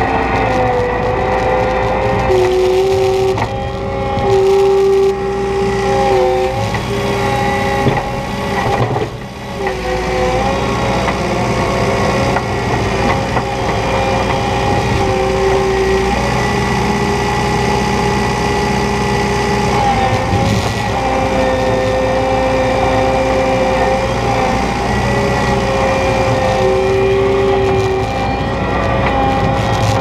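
New Holland skid steer's engine and hydraulics running steadily while it plows and lifts snow, a low rumble under a whine of several steady tones that dip and shift in pitch every few seconds as the loader works. The level drops briefly about nine seconds in.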